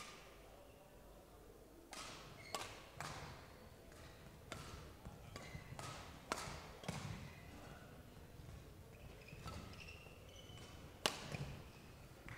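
Badminton rally: racket strings striking the shuttlecock about ten times, starting about two seconds in, each a sharp crack half a second to a second and a half apart, with the loudest hit near the end. Short shoe squeaks on the court floor come between the hits, and each crack rings briefly in the hall.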